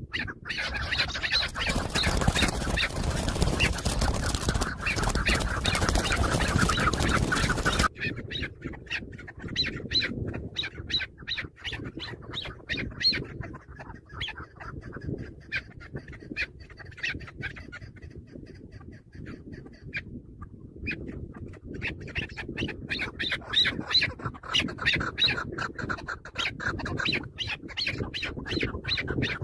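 Chukar partridges calling in rapid runs of short, sharp clucks, over and over. For the first eight seconds a loud rushing noise lies over the calls, then it cuts off abruptly.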